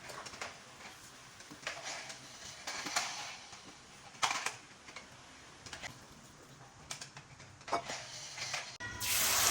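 Kitchen utensils and containers knocking and clicking lightly, a few sharp knocks at a time. Near the end a loud, steady hiss starts suddenly.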